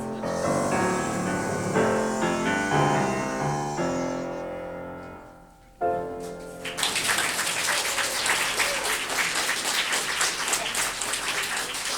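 Solo piano playing the close of the song: a stretch of chords that fades away, then a final chord struck about six seconds in. Audience applause follows about a second later.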